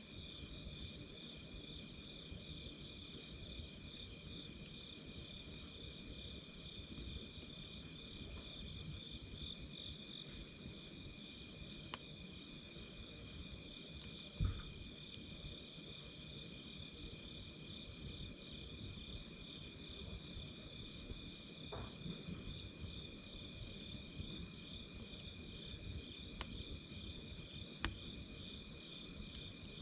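A steady chorus of crickets chirping in a fast, even pulse over a campfire's soft crackling. A few sharper pops stand out, the loudest about halfway through.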